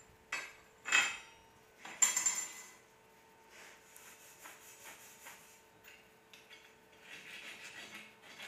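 Steel tools clanking and knocking on steel: a few sharp metal clanks in the first three seconds, then softer scraping and light tapping.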